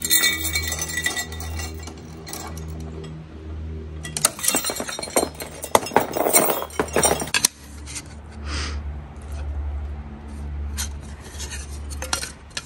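Steel chain and metal weight plates clinking and rattling, with a dense run of sharp metal clinks between about four and seven and a half seconds in and a few scattered clinks later.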